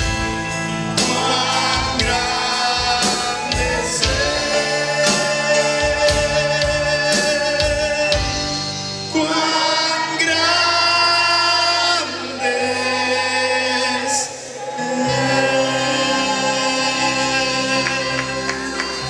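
Live gospel worship music: singing over sustained keyboard chords.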